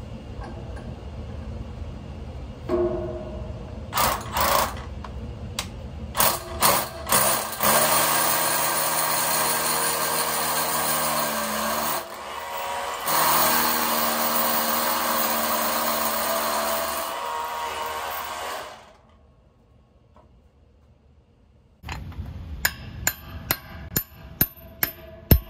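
Milwaukee drill boring into a concrete floor for wedge anchors: a few short trigger bursts, then a long steady run with a brief break about twelve seconds in. Near the end, a hammer strikes a steel wedge anchor about twice a second.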